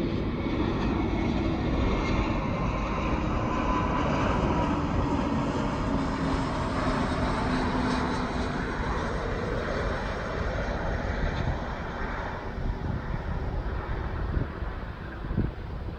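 Twin-engine jet airliner descending on its landing approach and flying past. Its engine noise carries a whine that falls slowly in pitch, then grows fainter after about ten seconds.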